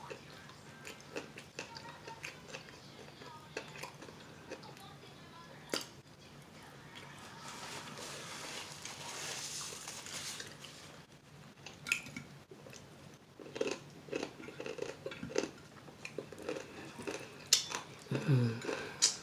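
Close-miked eating of fried chicken: chewing and biting with many short, scattered mouth clicks and smacks. A soft hiss swells up about seven seconds in and fades by eleven, and a short falling voiced sound comes near the end.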